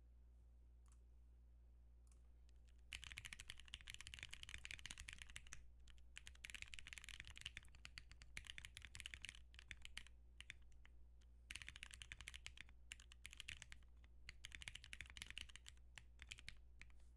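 Typing on a Kikuichimonji mechanical keyboard with lubed Cherry MX Black Hyperglide linear switches on a polypropylene plate: a few stray key clicks, then about three seconds in a fast, continuous run of keystrokes in bursts with brief pauses.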